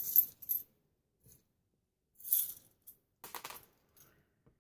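Small metal craft charms jingling and clinking together as they are shaken and picked out of their packet, in three short bursts, with a few faint clicks near the end.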